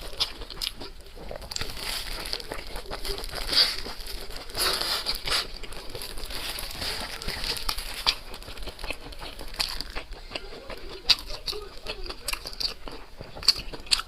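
Close-miked eating: chewing and crunching food, with many sharp mouth clicks and crackly bites.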